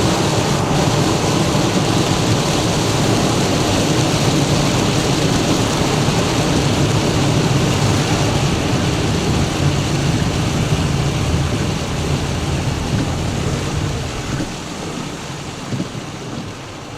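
Heavy downpour drumming on a car, mixed with the steady rush of tyres on the flooded road, heard from inside the car. The noise eases off somewhat in the last few seconds.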